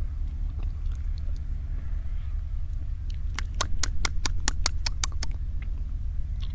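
Mouth clicks as a man stretches his mouth and jaw wide and works them around: about a dozen sharp, wet clicks of tongue and lips, roughly six a second, starting a little past halfway, over a steady low rumble.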